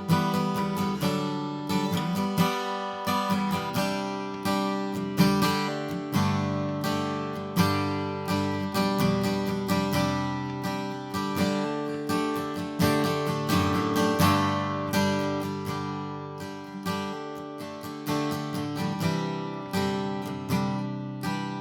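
2001 Gibson J-45 acoustic guitar strung with D'Addario EJ16 phosphor bronze light strings, strummed with a pick in a steady run of chords, roughly one to two strokes a second. Each chord rings and fades before the next, with a sweet, mellow tone.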